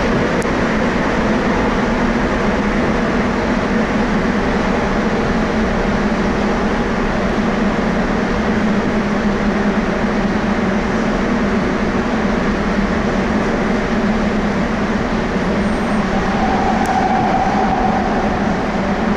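Rubber-tyred Sapporo subway train running at speed through its tunnel, heard from inside the car as a steady, unbroken rumble. A faint tone rises out of it briefly near the end.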